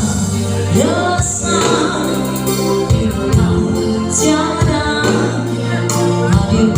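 A vocalist singing a pop song over a band, with held bass notes and a steady drum beat.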